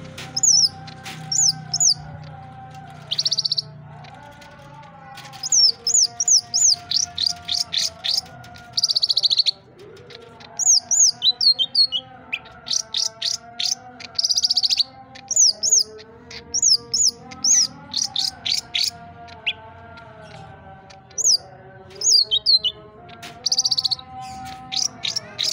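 Green leafbird (cucak ijo) singing: rapid runs of loud, sharp, high chirps and trills in bursts of about a second, with short pauses between. A fainter, lower wavering tone runs underneath.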